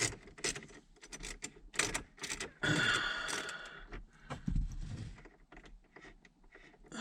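Scattered clicks, light rattles and scrapes of hand work on car interior dash trim, with a longer, louder scraping rattle about three seconds in.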